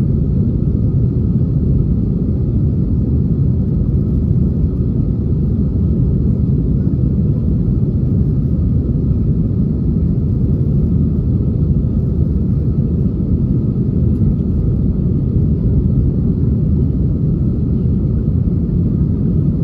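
Airbus A320 jet engines and airflow heard as a steady, loud low rumble that does not change.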